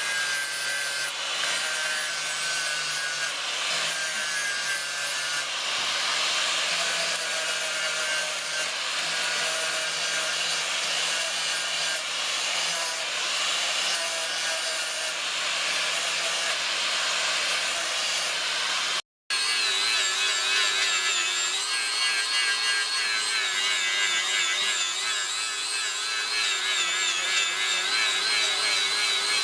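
An electric grinding tool running under load against the steel of a forged knife blade: a continuous abrasive rasp with a wavering whine. It breaks off for an instant about two thirds of the way through, then continues with a steadier whine.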